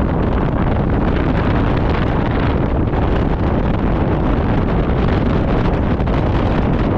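Steady wind rushing over the microphone of a camera mounted on a moving motor scooter, with the scooter's engine and tyre noise underneath.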